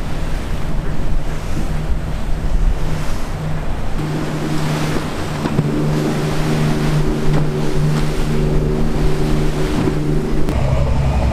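Patrol boat running at speed: steady engine drone under rushing water and spray, with wind buffeting the microphone. The engine tone shifts about four seconds in and again near the end.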